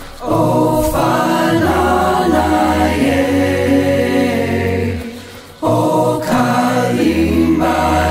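Background music with sung, choir-like vocals over sustained chords. It drops away briefly about five seconds in, then comes straight back.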